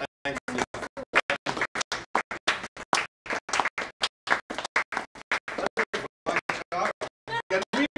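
People's voices chopped into short fragments by rapid audio dropouts, cutting in and out many times a second.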